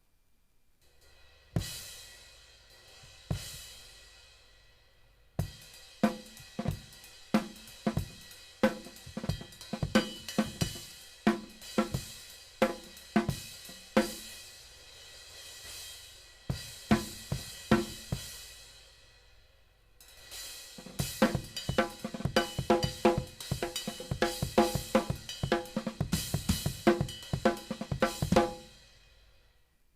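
Drum kit played to test a Sabian HHX Omni 19-inch crash-ride cymbal: two single cymbal strikes left to ring out, then beats with snare and bass drum under the cymbal wash, broken by two short pauses. A denser beat follows, ending with the cymbal ringing out.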